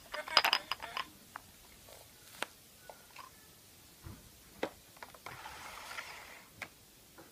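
A louder sound carried over from before ends within the first second. After it come scattered light clicks and taps of hollow plastic surprise eggs and their clear plastic tray being handled, with a soft brief rustle near the six-second mark.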